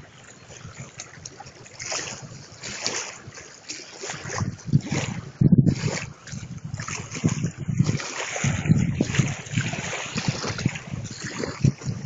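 Small waves lapping and splashing against a grassy lake bank, with wind buffeting the microphone, gusting harder from about halfway through.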